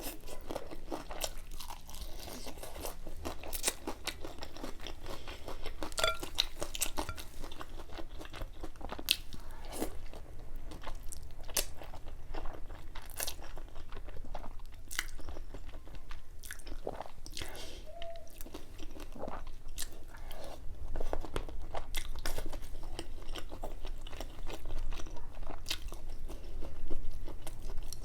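A person chewing and biting food close to the microphone, with many scattered short crunches and mouth clicks.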